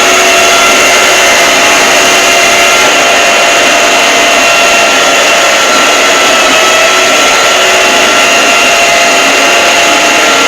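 Mock Emergency Alert System (EAS) alarm, heavily distorted: several steady siren-like tones that waver slowly in pitch under a constant harsh noise, at near-maximum loudness.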